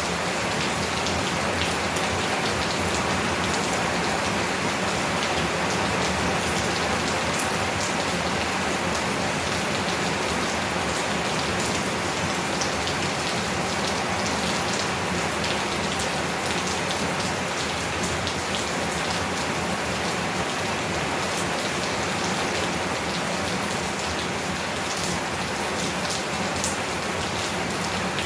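Heavy rain falling steadily as a dense, even hiss, with scattered sharp ticks of individual drops striking nearby surfaces.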